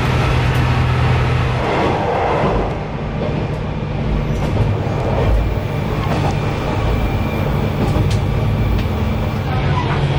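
Single-car diesel railcar running along the line, heard from inside: a steady engine drone that shifts in pitch a few times over the rumble of the wheels, with a few faint clicks.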